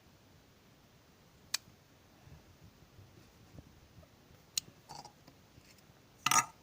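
A few sharp, isolated clicks over a quiet background, ending in a short, louder burst of crackling near the end.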